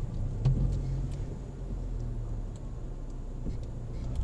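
Steady low hum of a car's engine and road noise heard from inside the cabin, with a soft knock about half a second in.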